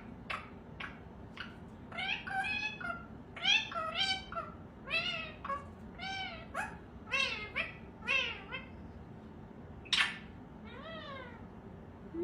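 Ringneck parakeet giving a string of short calls, each rising then falling in pitch, about one or two a second, with one short, loud harsh note about ten seconds in.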